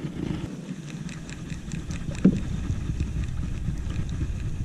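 Wind rumbling on the microphone over open water, with a run of light ticks and a single sharp knock about two seconds in.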